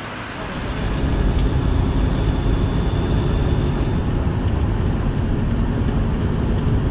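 Car driving on the road: a steady low rumble of engine and tyres that swells about a second in and then holds.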